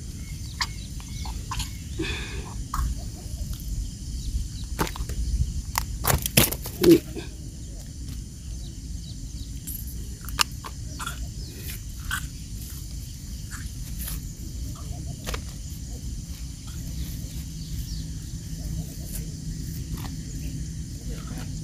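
Handling noises as a caught carp is unhooked by hand: scattered clicks and rustles, with a cluster of sharp knocks about six to seven seconds in, over a steady low rumble.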